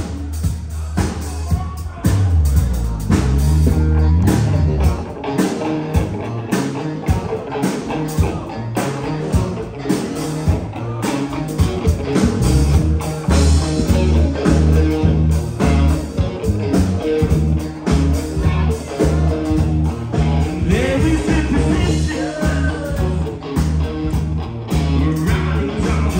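Live rock band playing: electric guitars, bass and drums with a singer. The music gets louder about two seconds in.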